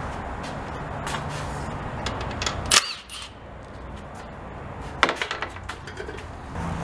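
Sharp metallic clanks from metal tools or parts being handled. One loud strike with a ringing tail comes near the middle, and a quick cluster of clicks and clanks follows about two seconds later, over a steady low hum that cuts out after the loud strike and comes back near the end.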